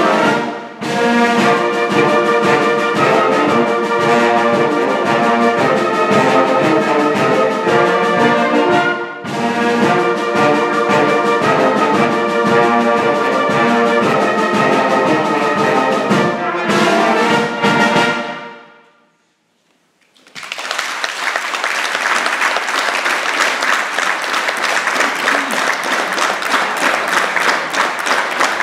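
A youth wind band of trumpets, trombones, saxophones, clarinets and tubas plays the closing bars of a piece. The last chord stops about 18 seconds in and dies away. After a second of silence the audience breaks into steady applause.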